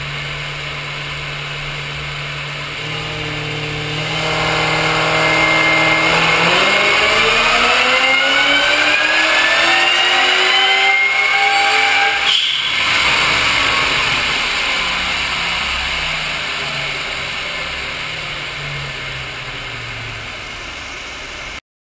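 Supercharged car engine idling, then revving steadily up over about six seconds with a high whine rising alongside. It cuts off sharply about twelve seconds in and winds back down to idle.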